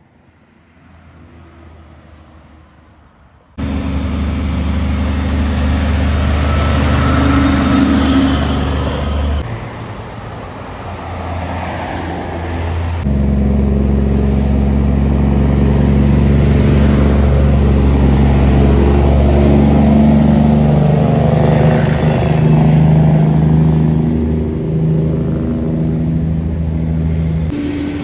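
Kenworth cabover semi-trucks' diesel engines running under load as they pass, a faint start followed by loud, steady engine sound that changes abruptly several times.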